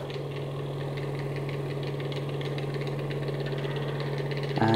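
Candy floss maker running: its spinning head's motor makes a steady low hum with a fast, fine rattle.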